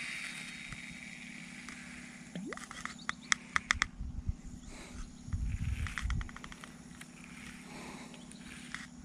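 Baitcasting reel in use: the whir of the spool after a cast fades away over the first two seconds, then sharp clicks come in quick runs as the reel is worked. Dull low thumps of handling around the middle.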